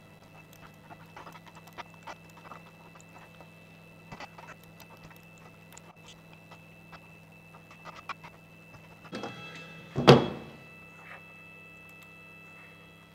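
Scattered light computer keyboard and mouse clicks over a steady electrical hum from equipment. About ten seconds in there is one loud, short thud-like sound.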